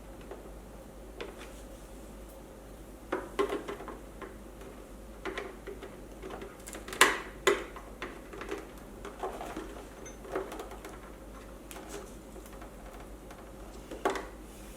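Irregular small clicks and light knocks of hand work on the unicycle's parts, with the sharpest pair about seven seconds in.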